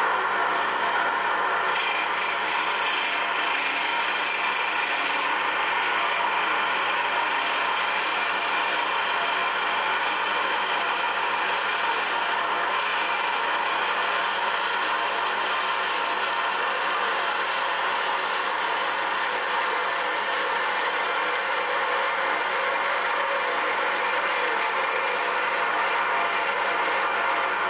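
A wood lathe spins a pen blank on a mandrel while a hand-held turning tool cuts into it. The result is a steady rasping scrape over the hum of the lathe. The cutting noise comes in about two seconds in.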